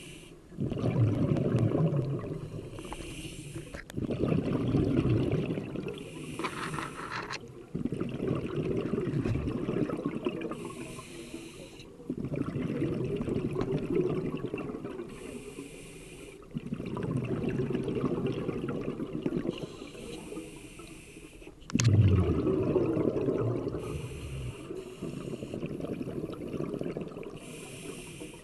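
Scuba diver breathing through a regulator underwater: a short hiss on each inhale, then a longer bubbling rumble of exhaled air, repeating about every four seconds.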